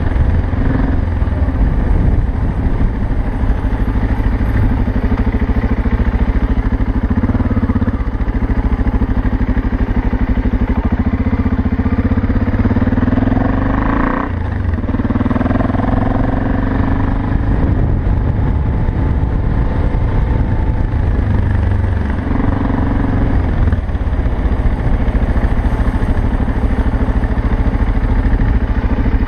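BMW 650 GS single-cylinder engine running under way on an offroad ride, with a steady pulsing beat. The engine eases off briefly about halfway through, then picks up again.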